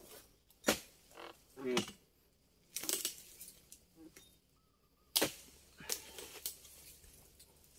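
A dodos, the chisel blade on a long pole used to harvest oil palm, chopping into the palm's crown: a handful of sharp crunching chops at uneven intervals, a second or so apart.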